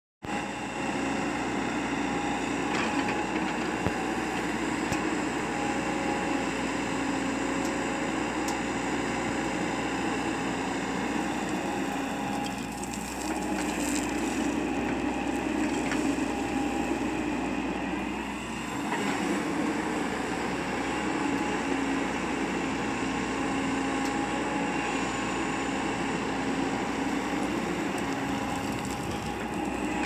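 JCB NXT 140 tracked excavator's diesel engine running with a steady drone as the machine digs, easing briefly twice.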